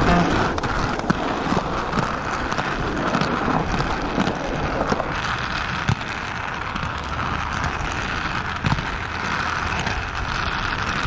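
Skate wheels rolling steadily over smooth concrete, a continuous rumbling hiss with a few sharp clicks scattered through it.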